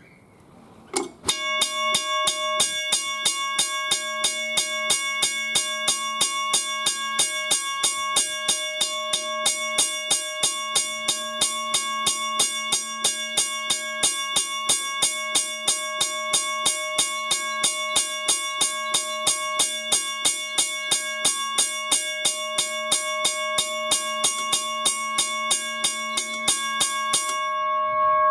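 Western Cullen Hayes first-generation 333 mechanical railway crossing bell ringing: its striker hits the gong about three times a second in an even rhythm, over a steady ringing tone. The striking starts about a second in and stops shortly before the end, leaving the gong ringing on.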